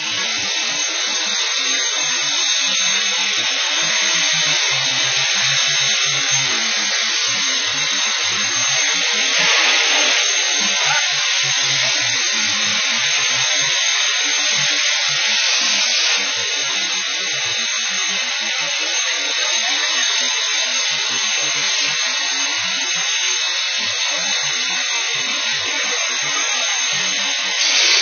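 Fire hose spraying water, a steady loud hiss with an uneven low rumble underneath.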